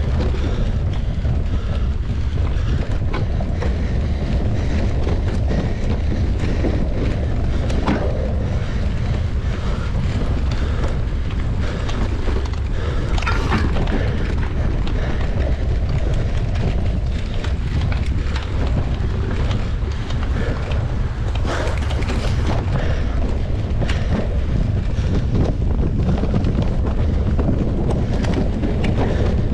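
Heavy wind rumble on the microphone of a camera riding along on a mountain bike, steady throughout, with a few short sharp knocks or rattles standing out.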